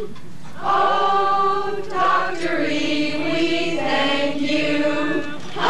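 A group of amateur singers, men and women, singing together in long held notes. They break briefly about half a second in, then carry the song's last drawn-out line to its close.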